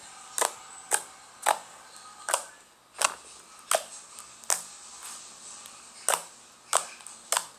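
Homemade click slime being worked by hand, giving a series of sharp popping clicks as trapped air pockets burst, about one every 0.7 seconds.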